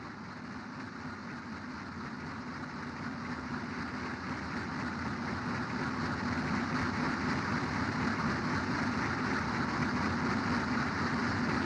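Industrial ambient drone: a steady, noisy machine-like rumble with a low hum in it, swelling gradually louder.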